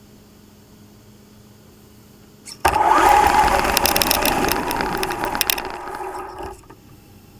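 Traxxas Slash Ultimate RC truck's brushless electric motor and drivetrain running hard, heard through the onboard GoPro, with many clicks and rattles. It starts suddenly about two and a half seconds in, then fades and cuts off about four seconds later.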